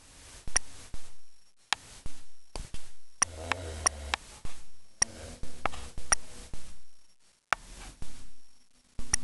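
Mastiff snoring in its sleep: low, rough snores every two seconds or so, with many sharp clicks scattered through.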